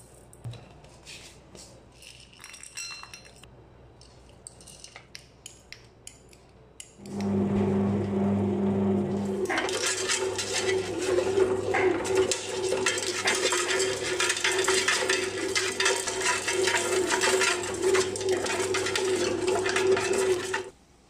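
Seeds and nuts clinking lightly in a steel bowl, then about seven seconds in a Kenwood BM250 bread machine's kneading motor comes in with a steady loud hum. From about halfway, a dense rattle joins it as mixed nuts and seeds go into the pan and are churned with the turning dough; everything cuts off abruptly shortly before the end.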